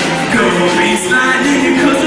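Rock-and-roll show tune sung by several voices over backing music, with a cymbal hit about once a second.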